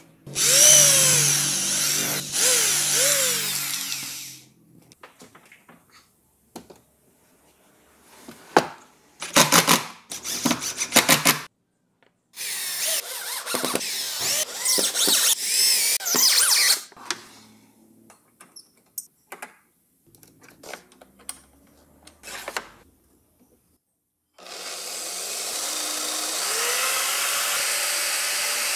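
Power drills working in several runs. Near the start a drill motor spins up and runs for about four seconds. Midway, after a few sharp knocks, a cordless drill drives screws into a fence strip in short bursts. In the last few seconds a corded electric drill mounted in a homemade plywood drill-press jig runs steadily as it bores into a board.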